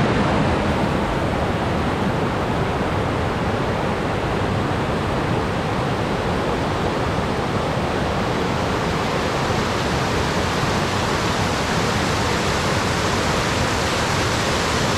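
Steady, loud rush of cascading water, heard close, with no breaks or changes; it begins and ends abruptly at cuts.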